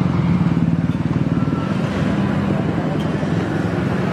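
Steady low engine drone of motor traffic, such as motorbikes running close by.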